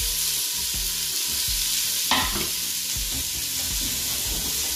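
Chopped red onion sizzling in hot oil in a stainless steel pot, a steady frying hiss. There is a single sharp knock about two seconds in.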